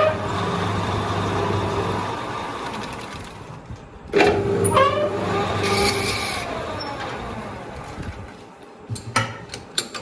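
Manual lathe's motor switched on with a sudden rush and left to wind down, its hum slowly falling in pitch and fading, twice, about four seconds apart. A few sharp clicks near the end.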